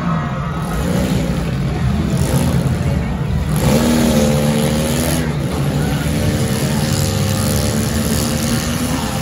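Demolition derby cars' engines revving hard, pitch rising and falling as they accelerate in the arena, with a few loud bursts of noise from the cars crashing together.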